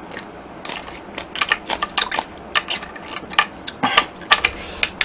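Ice being crunched between the teeth, close to the microphone: a run of irregular sharp cracks and crunches that starts about half a second in.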